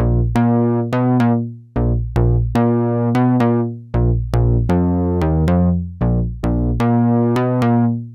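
Behringer 2600 analog synthesizer (an ARP 2600 clone) playing a low sequenced bass line of short, plucky notes. Each note starts with a sharp attack and quickly loses its brightness as the filter closes, and the phrase repeats about every two seconds.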